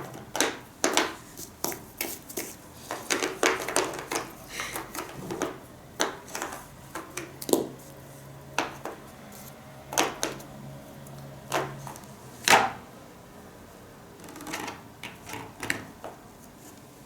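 Irregular clicks and knocks of small hard objects being handled and put into a container, with one louder knock a little past the middle.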